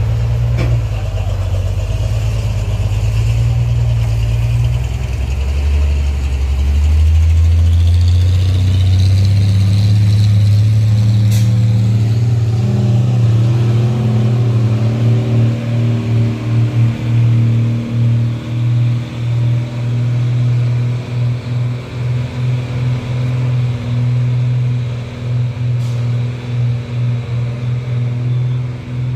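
Heavy diesel truck engines labouring under load as one truck tows a loaded Mitsubishi Fuso up a steep incline on a cable. The engine note climbs between about six and twelve seconds in, then holds steady while the loudness wavers.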